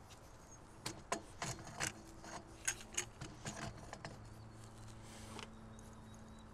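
Metal clicks, taps and light scrapes as a bike-carrier arm is slid onto its mast and fitted, a quick run of sharp taps in the first few seconds, then a faint steady low hum.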